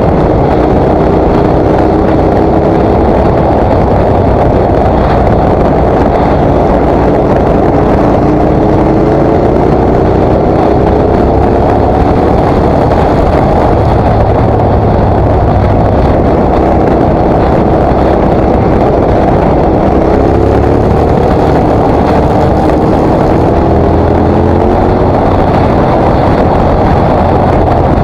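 Motorcycle riding at road speed: heavy wind noise on the bike-mounted microphone over the KTM 950 SMR's V-twin engine. The engine note rises under acceleration twice, about eight and twenty seconds in.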